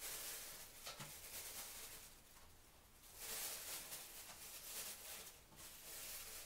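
Faint rustling of a plastic bag worn over the hand, in several short bouts, as carrot pieces are taken from it and laid on oat bedding in a plastic tub.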